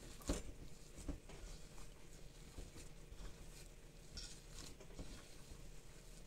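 Hands kneading and squeezing corn masa dough in a clay bowl: faint, irregular soft pats and squishes, the sharpest one about a third of a second in.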